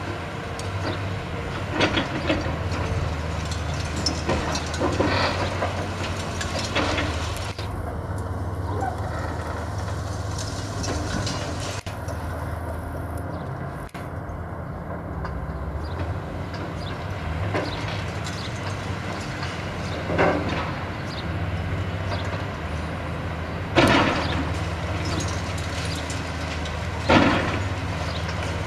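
Hydraulic excavator's diesel engine running steadily while its OSA demolition shear crunches through the building's concrete. Several sharp cracks of breaking concrete come every few seconds, the loudest two near the end.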